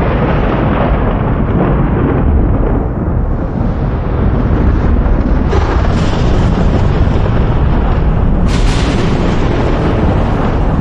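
Thunder rumbling continuously and loudly, with two sharper cracks breaking in, one about halfway through and one near the end.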